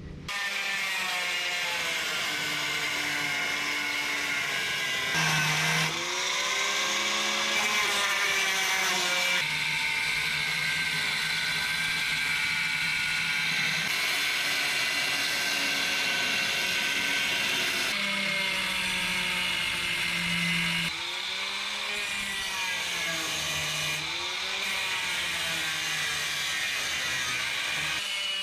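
A power cutting tool running and cutting through the Early Bronco's sheet-steel floor pan. Its pitch sags and recovers as it bites, with a few abrupt changes in level.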